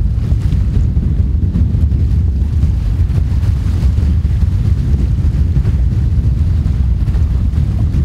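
Wind buffeting the microphone as a loud, steady low rumble, with small waves washing onto a sandy shore beneath it.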